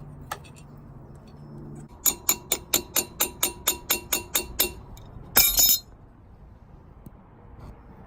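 About a dozen quick metallic taps, roughly five a second and ringing, from engine parts being worked during reassembly, followed by one short louder scraping clatter.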